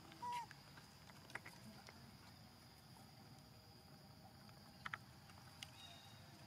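Near silence with a faint, steady, high-pitched insect drone, a brief chirp just after the start and a few soft clicks.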